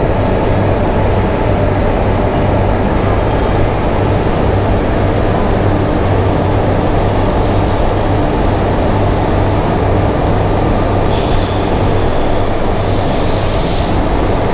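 Passenger train pulling out of a station and gathering speed, heard from the open doorway of the coach: a steady, loud running rumble with a low hum under it. A short hiss about a second long comes near the end.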